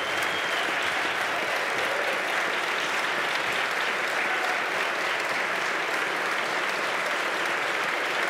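Standing ovation from a large legislative audience: dense, sustained applause of many people clapping, steady in level throughout.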